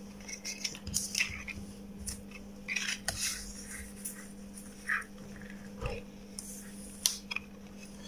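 Small scattered clicks and rustles of hands handling hookup wires and a cardboard-mounted rotary switch, over a steady low hum.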